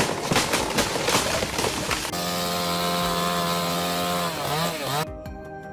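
A chainsaw cutting. It starts as rough, crackling noise, then runs at a steady high pitch for about two seconds, and the pitch wavers and dips as it comes off the throttle. About five seconds in it cuts off abruptly to a quieter sound with a regular tick.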